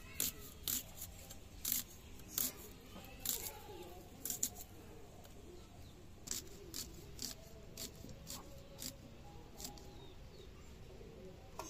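Crisp snicks and crackles of a small knife cutting and peeling red onions by hand, irregular strokes about two a second, pausing briefly near the middle.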